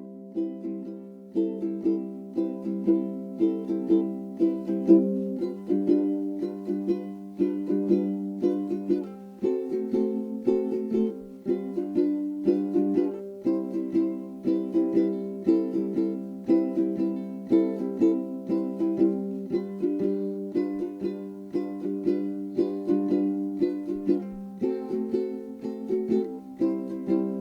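Background music: plucked ukulele strumming chords in a steady, rhythmic pattern.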